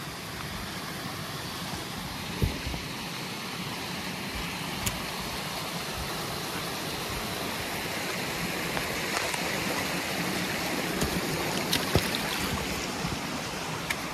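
Steady rush of running water, like a mountain stream, with a few faint knocks.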